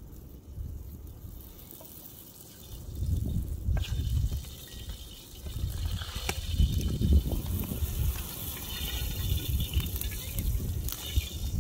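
Flatbread dough frying in a wide pan of hot oil over a wood fire, sizzling, with the sizzle growing stronger about two-thirds of the way through. An uneven low rumble runs underneath.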